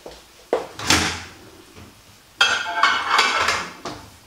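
Microwave oven door opened with two sharp clunks, then a dish clattering for about a second as it is put inside.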